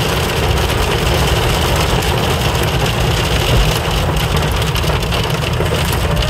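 Hail and heavy rain drumming on a car's roof and windshield, heard from inside the cabin as a dense, steady patter of small impacts over the low rumble of the moving car.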